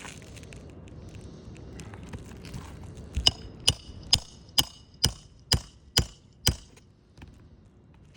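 Hammer driving a roofing nail through an asphalt shingle: about eight sharp, ringing strikes at roughly two a second, after a few seconds of faint scraping.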